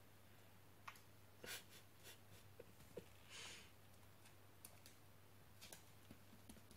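Near silence in a small room: faint scattered clicks and light taps, with a brief soft hiss about three and a half seconds in, over a steady low hum.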